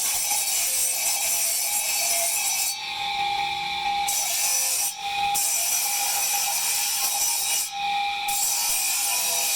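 Power tool grinding marble: a steady, loud abrasive hiss with a motor whine, easing off briefly three times as the tool is lifted from the stone.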